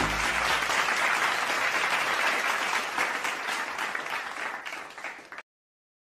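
Applause from a crowd clapping, fading gradually and cutting off abruptly a little after five seconds.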